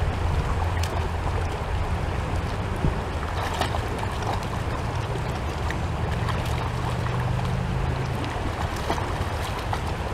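Doberman wading in shallow creek water, its legs splashing and churning the water in small, irregular splashes. A steady low rumble of wind on the microphone runs underneath.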